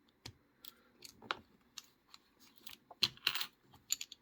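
Lock pick and tension wrench working in the keyway of a vintage Yale wafer padlock: scattered small metallic clicks and scrapes, with a cluster of scratching about three seconds in.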